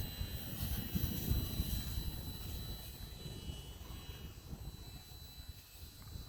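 Wind buffeting the microphone in gusts, strongest in the first couple of seconds, with the thin steady high whine of a HobbyZone Sport Cub S2 RC airplane's electric motor in flight.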